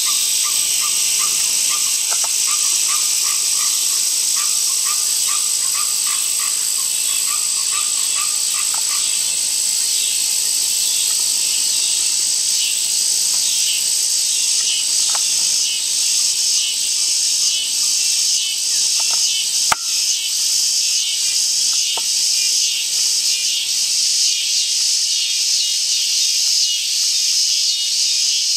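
Steady high-pitched insect chorus of a pond edge, which takes on an even pulsing beat from about halfway through. A quick run of lower repeated calls sounds over it in the first third, and there is one sharp click about twenty seconds in.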